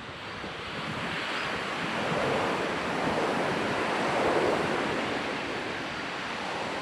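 Ocean waves breaking and washing up a sand beach, the surf swelling over a couple of seconds and then easing off. Some wind buffets the microphone.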